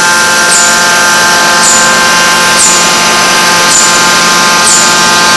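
Forging machine running with a steady hum of several held tones, with a short high chirp about once a second.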